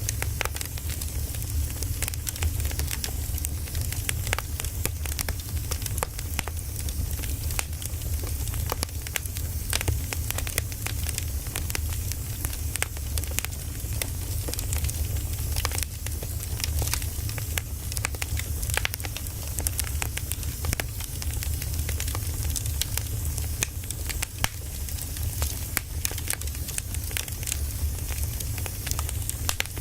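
Firewood burning, crackling with frequent irregular sharp pops over a steady low rumble and hiss.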